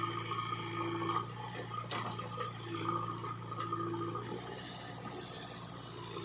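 Steady low engine hum, with short whining tones coming and going above it.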